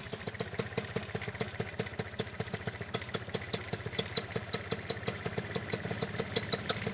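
Paramotor trike engine idling, a rapid steady firing beat with louder pops about three times a second.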